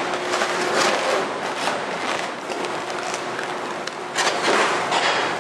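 Ice core sliding out of a tipped-up ice-drill core barrel onto loose ice chips: continuous scraping and crunching of ice, with a louder scrape about four seconds in. A steady hum runs underneath.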